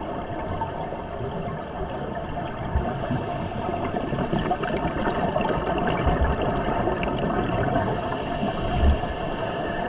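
Underwater noise picked up by a dive camera during a scuba dive: a steady rushing, bubbling hiss, with a few brief low thumps, the last and loudest near the end.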